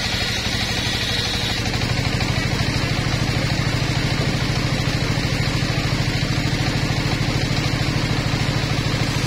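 Engine-driven circular saw bench running steadily with an even, fast beat while wood is fed through its large spinning blade; the low engine note grows a little louder about a second and a half in.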